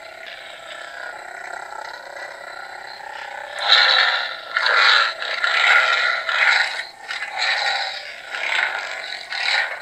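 Hasbro Black Series Force FX Kylo Ren lightsaber's electronic sound effects from its built-in speaker: a steady idle hum, then, from a little under four seconds in, several louder swells as the blade is swung.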